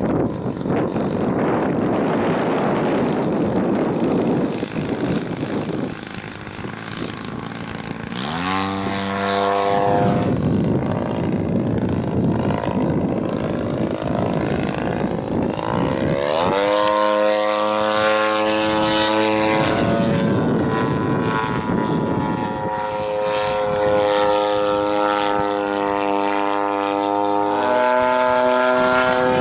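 Engine and propeller of a 1/3-scale Piper Super Cub RC model plane in flight. Its pitch climbs steeply as the engine opens up about eight seconds in and again about halfway, then holds a steady drone. A rushing wind noise dominates the first few seconds.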